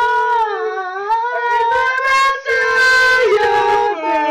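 A voice singing one long, high, wavering note in a single unbroken breath, its pitch stepping and sliding lower near the end.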